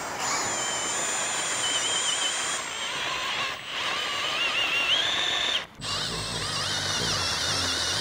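Cordless drill running under load, boring out a damaged bolt hole in a Subaru FA24 engine block so it can be retapped to a larger NPT thread. Its high whine wavers in pitch, eases off briefly about three and a half seconds in, and stops for a moment near six seconds before starting again.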